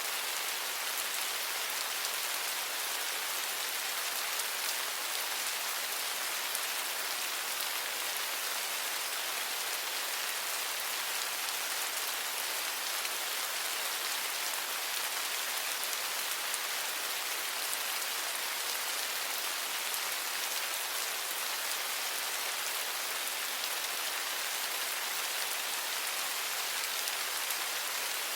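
Steady rain falling on a surface: an even hiss of many drops, weighted toward the high end, with no thunder or other sounds.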